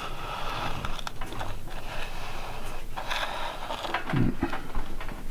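Scraping and rustling handling noise with scattered small clicks and a low thump about four seconds in.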